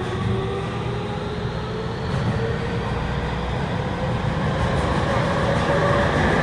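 Inside a Tokyu 3000 series train: the VVVF inverter and traction motors whine with a slowly rising pitch as the train accelerates, over a steady rumble of wheels on rail. The inverter still runs its original, un-updated software, the source of the high-pitched whine that the uploader calls 'キーン'.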